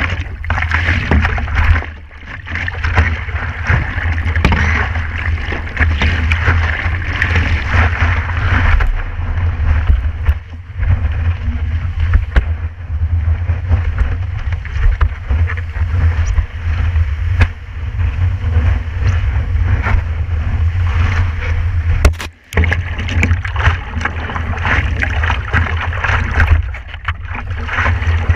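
Sea water rushing and splashing around a stand-up paddleboard riding breaking waves, with a heavy low rumble of wind buffeting the board-mounted action camera's microphone. The sound drops out briefly about 22 seconds in.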